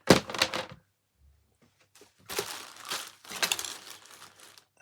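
Handling noise of the vacuum's wiring and parts being worked by hand: a loud burst of rustling and knocking at the start, a short pause, then about two seconds of irregular rustling and clicking.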